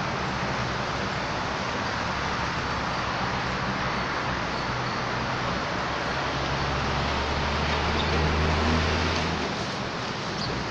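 Steady road traffic noise, with a low vehicle engine hum that swells to its loudest about eight to nine seconds in and then fades.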